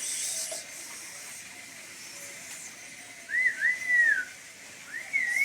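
A person whistling two short phrases that glide up and down, the second running on past the end. A brief hiss comes at the very start.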